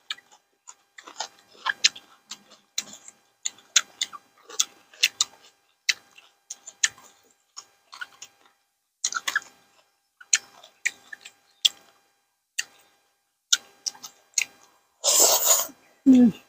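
Close-miked eating sounds: wet chewing, crunching and lip-smacking clicks from a mouthful of papaya salad with rice noodles, coming irregularly several times a second. Near the end comes a louder rushing noise, then a short voiced sound that falls in pitch.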